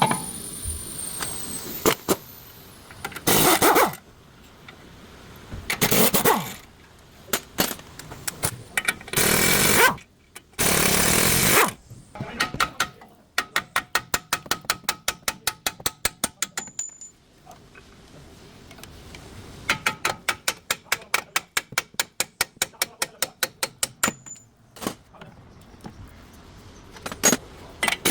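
Car repair tool work: several short bursts of a power tool, then long runs of ratchet wrench clicking at about eight clicks a second.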